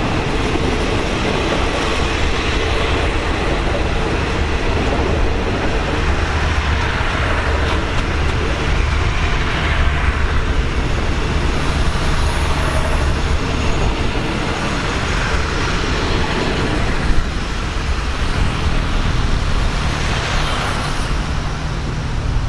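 Road traffic driving across a railway level crossing: cars and a motorcycle passing over the tracks with a steady rumble. Two vehicles swell past louder, about ten seconds in and near the end. The last coaches of a passenger train roll away at the start.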